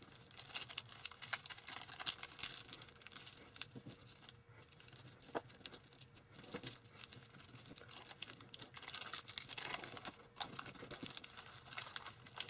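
Tissue foil (kitchen foil laminated with tissue paper) being folded and creased by hand: faint, irregular crinkles, small taps and rubbing as the stiff sheet is pressed flat against the table.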